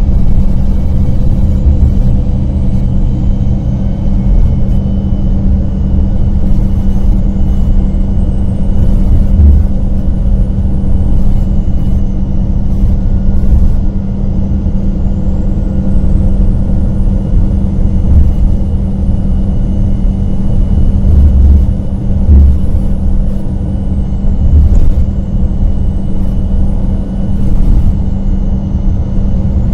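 The Cummins ISM diesel engine and driveline of a 2000 Gillig Phantom transit bus, heard from inside the cabin while it cruises at speed, with a steady low drone. A faint high whine rises and falls several times over it.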